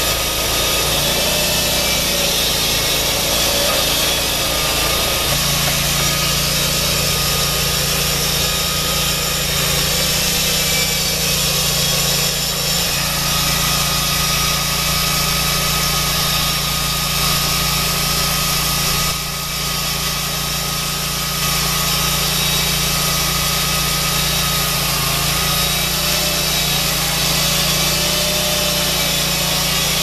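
A Lucas Mill's engine running steadily under load, driving a chainsaw bar and chain through a large log to mill a wide slab. The chain cuts the wood with a steady, high-pitched rasp over the engine note. The sound dips briefly about nineteen seconds in.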